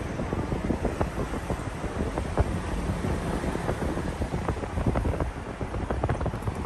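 Low, steady rumble of a moving vehicle heard from inside it, with many small irregular rattles and clicks.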